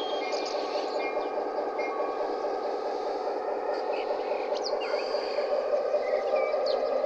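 Recorded EMD 16-567 diesel sound from a Zimo sound decoder, played through the small speaker of a G scale F3A model locomotive: a steady engine drone with no deep bass, growing a little louder about five seconds in. Birds chirp now and then.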